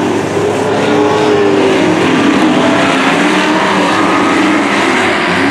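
Engines of dirt-track race trucks running hard around the oval, several engine notes at once whose pitch rises and falls as the trucks lift and accelerate.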